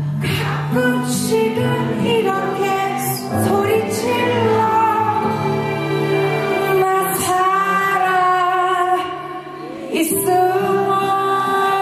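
A woman singing a Korean pop ballad live into a microphone over amplified instrumental accompaniment, holding long sustained notes.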